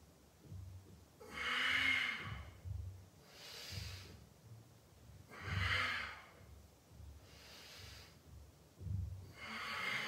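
A man's hard breathing during repetitions of a lying core exercise: four loud, hissing breaths, about two seconds apart, two of them with a short low voiced edge of effort.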